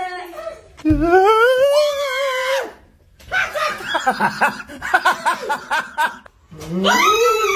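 A long high-pitched scream of fright, with a low thump as it begins, then a few seconds of rapid, pulsing laughter, then a second, shorter scream near the end.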